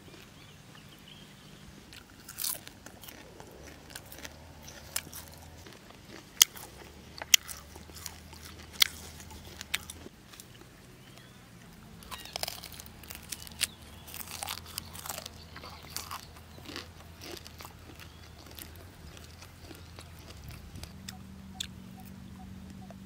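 Biting and chewing a grilled black spider, close to the microphone: sharp crunches as the crisp body and legs break, a handful of loud single crunches a second or two apart, then a denser run of crunching and chewing about halfway through.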